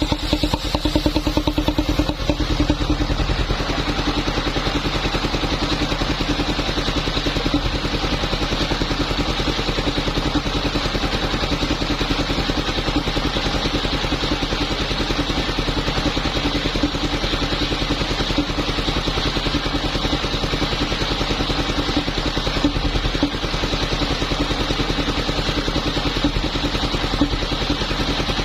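Engine of a wood-sawing machine running steadily at an even speed.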